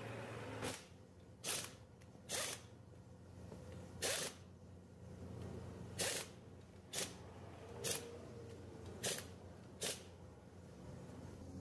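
Pneumatic impact wrench fired in short trigger bursts, about nine in all and roughly a second apart, running in the bolts of a Toyota 1DZ diesel engine's front timing-gear housing. A low steady hum runs underneath.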